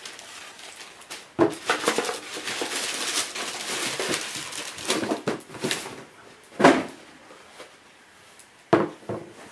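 Tissue paper rustling and crinkling as a sneaker is pulled out of its shoebox, followed by a few short knocks as the shoe is set down on a wooden table.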